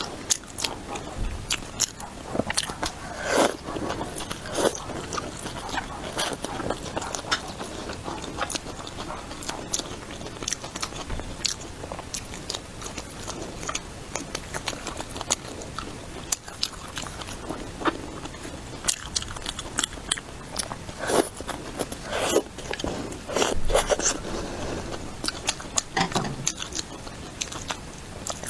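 Close-miked eating: a person biting and chewing food, with many crisp crunches and wet mouth clicks at an irregular pace throughout.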